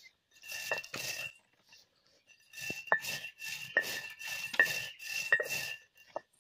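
Stone roller worked back and forth on a flat grinding stone, crushing dry seeds: repeated gritty scraping strokes, each with a sharp stone-on-stone click. The strokes stop for about a second early on, then run on steadily and die away near the end.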